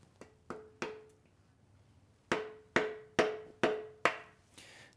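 A hammer striking the handle of a screwdriver wedged into the oil pan seam of an engine block, driving it in to break the stuck pan free: three light taps, then after a pause five harder strikes about half a second apart, each with a brief metallic ring.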